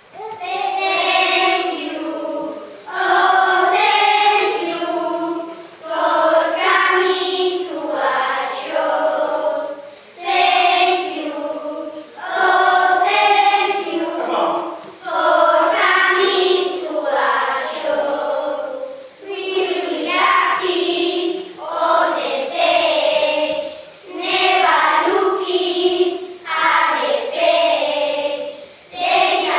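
A group of young children singing together, in short phrases with brief pauses between them.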